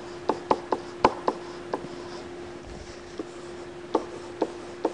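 Stylus tapping and clicking on a tablet screen during handwriting: irregular sharp clicks, with a gap of about a second in the middle, over a steady faint hum.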